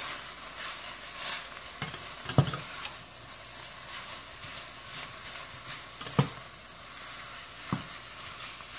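Chicken sausage, diced onion and yellow bell pepper sizzling in a stainless steel skillet while a silicone spatula stirs and scrapes through them, with three sharp knocks of the spatula against the pan.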